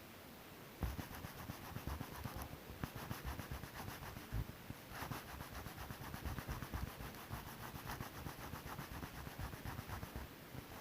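Hand sanding of car bodywork: quick, even back-and-forth rubbing strokes of abrasive over a panel. It starts about a second in, with a short break midway.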